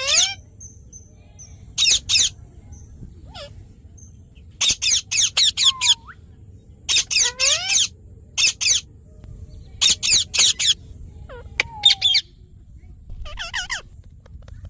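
A pet parrot giving short, high-pitched chirping squawks in quick clusters of two to five calls. The clusters come every second or two, with quiet gaps between them.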